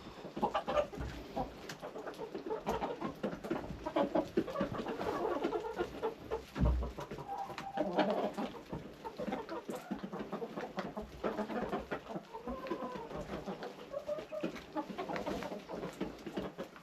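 A flock of hens clucking continuously, many short overlapping calls, with a single low thump about six and a half seconds in.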